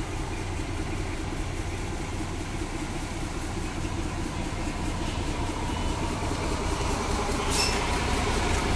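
Krupp BB304-class diesel-hydraulic locomotive running as it rolls slowly past on shunting duty, its engine drone growing louder as it draws near. A brief high squeal sounds about seven and a half seconds in.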